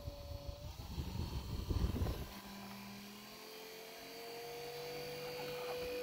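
Mitchell 12-volt clip-on car fan running, kind of loud because of where it is mounted. For the first two seconds or so its air buffets with a low rumble; then the rumble drops away and the motor's whine rises slowly in pitch and holds steady.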